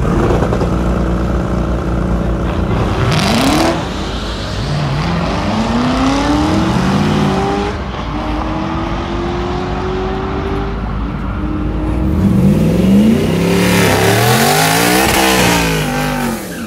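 Twin-turbo Ford F-150's Coyote V8 at the start line, idling and then revved up and down several times, with a loud rush of noise about three seconds in and again near the end.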